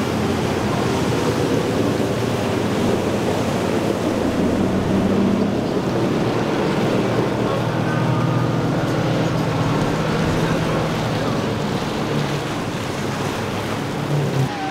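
Twin Yamaha 150 outboard motors running at speed as the boat passes, a low steady engine hum that grows stronger about halfway through, over a constant rush of water from the hull's wake and surf.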